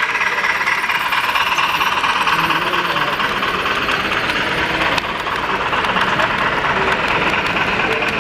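HO-scale model freight cars rolling past close by: a steady rolling noise of their metal wheels on the rails.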